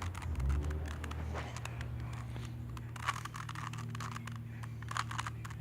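Irregular plastic clicks and scrapes from a Rubik's cube being turned by hand, over a steady low hum.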